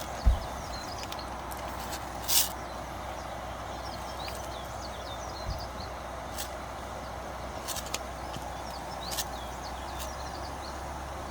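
Steady rushing of a flowing river, with many small high bird chirps over it, a few sharp ticks, and one low thump just after the start.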